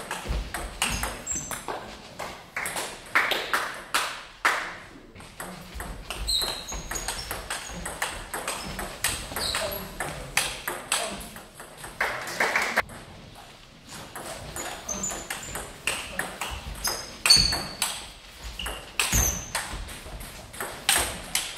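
Table tennis rallies: the ball clicking sharply off the bats and bouncing on the table in quick back-and-forth runs, with short pauses between points.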